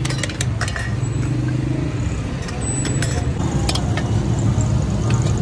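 Steady hum of street traffic and an idling engine, with several sharp metallic clinks from aluminium pot lids and tongs against the cooking pots.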